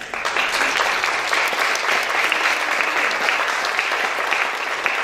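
Congregation applauding: dense, steady clapping that breaks out suddenly.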